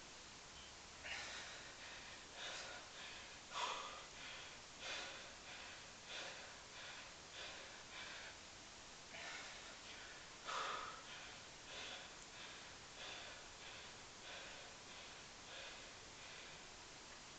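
A man breathing hard and rhythmically through nose and mouth while doing pistol squats, one breath a little more than once a second, two of them louder near the start and about two-thirds of the way through.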